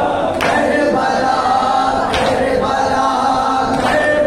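Noha lament sung by a male reciter over a microphone and chanted in unison by a crowd of men. Three sharp, evenly spaced strikes fall about every 1.7 seconds, the rhythm of matam chest-beating.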